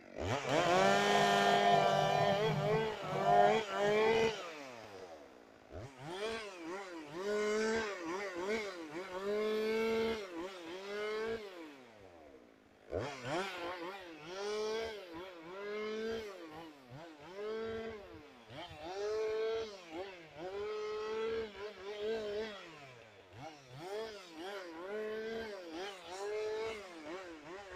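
Chainsaw engine held at high revs for about four seconds, then revved up and let drop back over and over, roughly every one and a half to two seconds, with a brief lull about halfway through.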